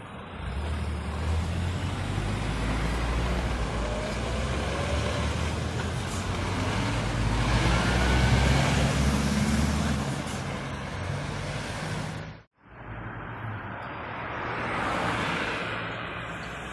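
Diesel engine of an articulated lorry pulling past close by, a low heavy rumble that builds to its loudest about eight seconds in, with a short rising whine as it passes. The sound cuts out briefly near the end, then a lighter vehicle goes by with mostly tyre noise.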